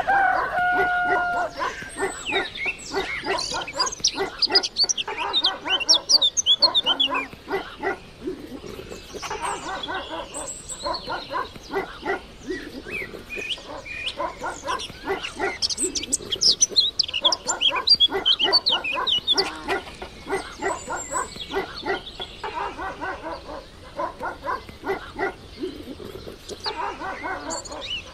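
Dogs barking in quick runs of repeated barks, with birds chirping in the background.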